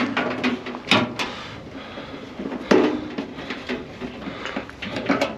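Metal parts of a microwave oven being handled and pulled at during dismantling: a few sharp knocks and clanks, the loudest near the start, about a second in and near the middle, with scraping and rattling between.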